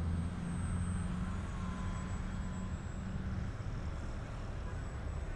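Electric Ugly Stick RC model airplane flying slowly overhead at part throttle, its motor and propeller a faint, slightly wavering whine over a steady low rumble.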